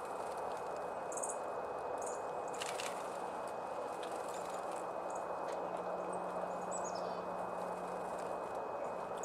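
Small wild birds giving short, high chirps over a steady background hiss, with a quick run of falling notes about seven seconds in.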